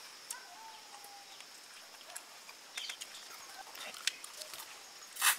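Eating noises from chewing and sucking on cooked mutton bones: scattered small wet clicks and smacks, then one loud, short sucking sound near the end as marrow is drawn out of a bone.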